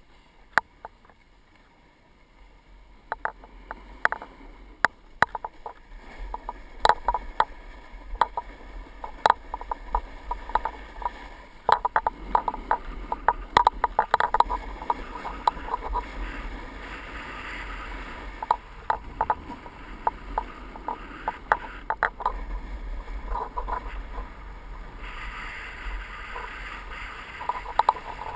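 Snowboard sliding down groomed packed snow: a scraping hiss from the base and edges that starts after a couple of near-quiet seconds and builds as the board picks up speed. Frequent sharp clicks and knocks run through it.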